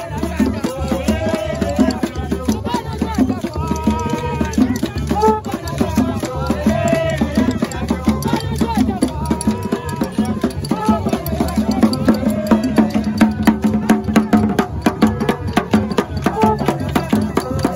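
Street protest music: a crowd singing over fast percussion of knocks and rattles, with a low bass note repeating in a steady pattern.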